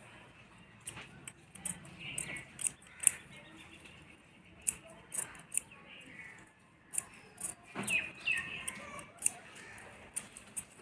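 Large steel tailor's shears snipping through cloth, a series of short crisp cuts at irregular intervals, trimming the excess fabric from a piping strip.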